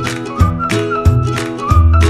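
Upbeat background music: a light high melody over plucked notes, bass and a steady beat.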